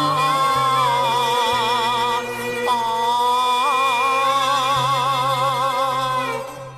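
Cantonese opera singing: a long melismatic line with strong wavering vibrato, held over sustained low accompaniment. It breaks briefly about two seconds in and fades near the end.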